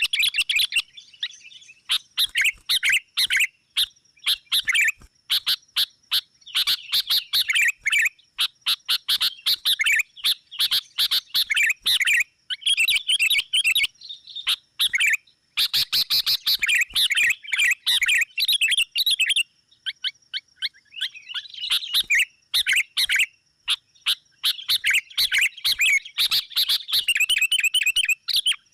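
Sooty-headed bulbuls (kutilang) calling in loud, rapid, chattering bouts broken by short pauses: an excited bulbul lure call (pikat) of the kind played to draw wild bulbuls in.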